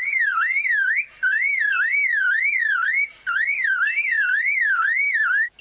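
Male lyrebird mimicking a car alarm: a whistled tone wavering up and down about three times a second, in phrases broken twice by short pauses.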